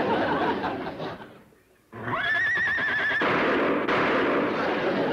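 A horse's whinny: one wavering, high call about two seconds in, between stretches of rushing noise.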